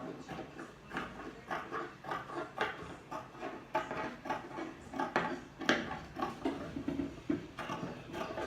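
Fabric shears cutting through folded cloth along a marked circle, a steady run of sharp snips about two a second.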